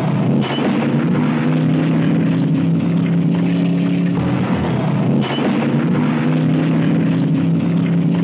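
Car engine running hard at steady high revs, its pitch breaking briefly about four seconds in before settling again.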